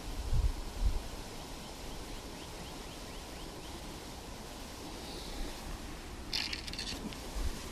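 Outdoor background hiss with low handling bumps on a body-worn camera's microphone, a faint quick run of about eight short rising chirps a couple of seconds in, and a short crackling rustle of clothing against the camera near the end as the wearer moves.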